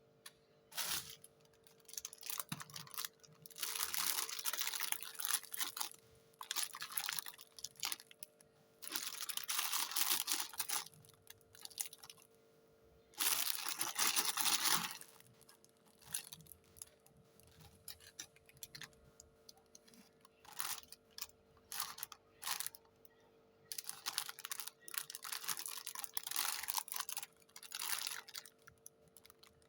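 Toy packaging being handled and torn open: irregular bursts of crinkling and tearing, the loudest and longest about 13 to 15 seconds in, over a faint steady hum.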